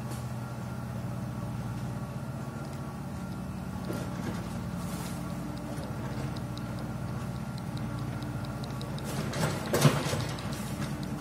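A steady, low, engine-like hum. A few seconds of light, quick ticking come in past the middle, and one loud sharp knock sounds near the end.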